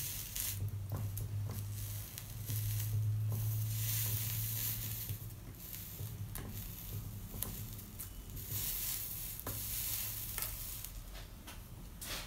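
Soldering iron sizzling on fluxed copper foil as solder is tinned along the edge of a stained glass lampshade, in several hissing spells.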